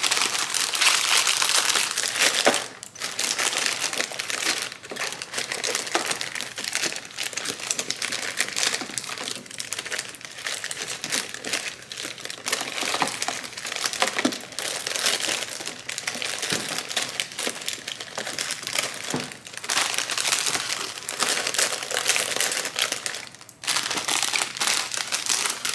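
Plastic bags and grocery packaging crinkling and rustling almost without a break as groceries are handled, with a brief lull near the start and another near the end.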